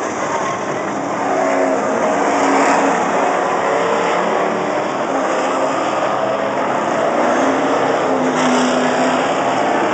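Several late-model stock car engines running at speed around a short oval track, a continuous loud mix of engine notes that waver in pitch as the pack circles.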